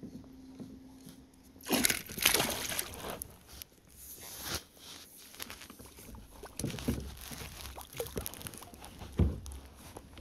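Water sloshing and splashing as a hooked northern pike is fought and reeled in beside a kayak. A loud burst of splashing comes about two seconds in, with shorter splashes and a few low thumps later.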